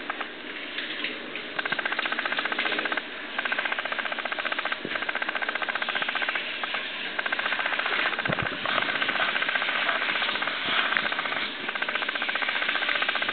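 Hand-held shower head spraying water onto a puppy and the shower floor: a steady hiss of spray, with a thin steady tone running under it, dipping briefly a few times as the spray is moved.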